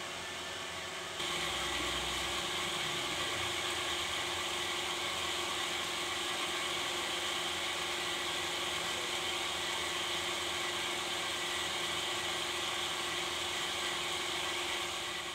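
A steady mechanical whirr and hiss with a low steady hum under it. It steps up in loudness about a second in.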